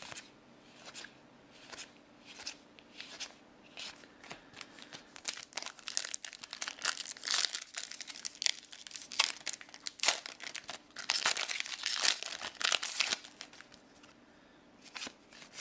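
Cards being flicked over one at a time, a few soft clicks, then from about five seconds in a trading-card booster pack's wrapper being crinkled and torn open by hand for around eight seconds.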